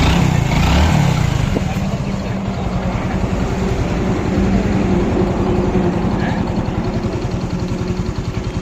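Hero Glamour motorcycle's single-cylinder four-stroke engine running after its piston rings were replaced. It revs briefly near the start, then settles to a steady run.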